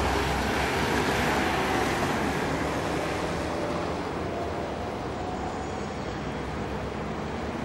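City road traffic: a car driving close past, then the steady noise of cars, a van and a bus on the street, easing a little after a few seconds.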